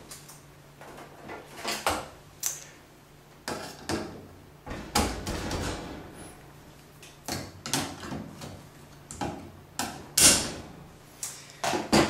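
Irregular clicks, taps and short scrapes of a hand tool and fingers working on the plastic and metal parts of a Maytag Neptune washer's door-lock assembly, refitting a retaining spring and a wire terminal.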